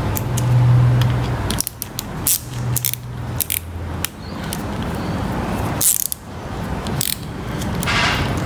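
Small ratchet with a 7 mm socket clicking irregularly as a worm-drive hose clamp on a kart engine's coolant hose is backed off. A low hum comes and goes in the first few seconds.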